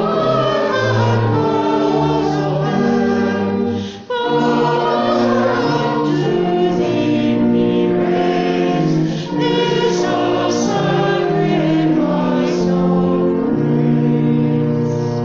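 Church congregation singing a hymn together, with a brief break between lines about four seconds in.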